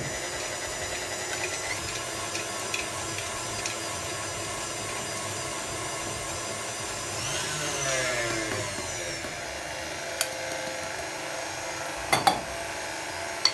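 KitchenAid Artisan stand mixer running steadily with a motor whine as it mixes butter, sugar and flour. Its sound swells and shifts in pitch about eight seconds in, and a few sharp knocks near the end come from bowls set down on the steel counter.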